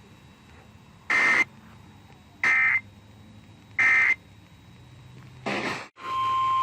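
Three short warbling digital data bursts about 1.3 seconds apart: the SAME end-of-message code that closes an Emergency Alert System weather warning. Then comes a brief crackle and a short dropout, and about six seconds in a loud steady single-pitch tone begins: the NOAA Weather Radio attention tone that opens the next warning.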